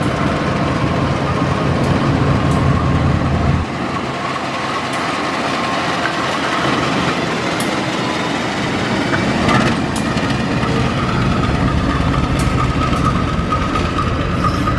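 CC 201 diesel-electric locomotive (GE U18C type) running light at low speed, its diesel engine droning steadily, with a few sharp clicks from the running gear. A steady high whine joins in about two-thirds of the way through.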